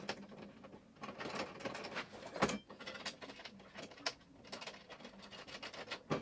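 Faint, irregular clicks and taps of a steel TV wall-bracket arm and its M6 screws being handled against the back of a television as the screws are wound in loosely by hand, with a slightly louder knock about two and a half seconds in.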